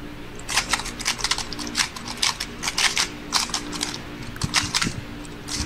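Speedcube being turned rapidly by hand in a speedsolve: fast runs of sharp plastic clicks and clacks, with two brief pauses, one a little past halfway and one near the end.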